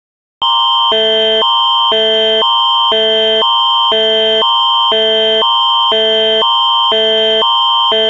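Canadian Alert Ready attention signal: two chords alternating about twice a second, a higher one and a lower one, over a constant high tone. It starts about half a second in and is the alert tone that heralds a broadcast emergency alert.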